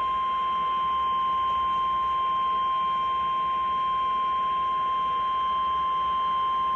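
NOAA Weather Radio's 1050 Hz warning alarm tone: one steady, unbroken tone. It is the alert signal that a warning message is about to be broadcast.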